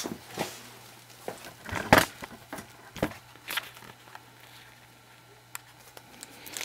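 18650 lithium-ion cells and their plastic wrappers being handled on a work mat: scattered light taps, clicks and knocks, the loudest about two seconds in, with some light crinkling.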